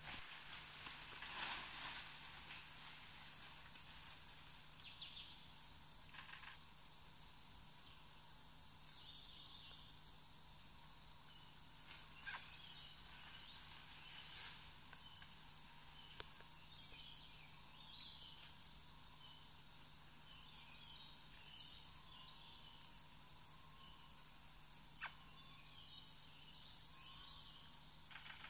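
Tropical rainforest ambience: a steady chorus of insects with a pulsing high trill, scattered short bird chirps, and a few sharp clicks, with a brief louder rustle about a second in.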